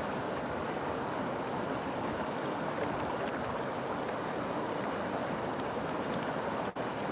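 River water flowing steadily, a dense even rush with faint splashes, broken by a split-second gap near the end.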